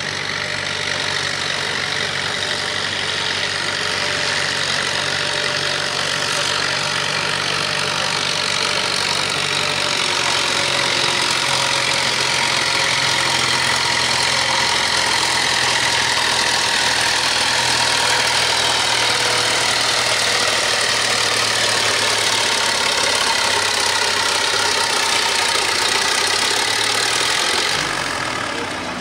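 Classic pulling tractor's engine running steadily under heavy load as it drags a weighted pulling sled down the track. It eases off sharply near the end as the pull finishes.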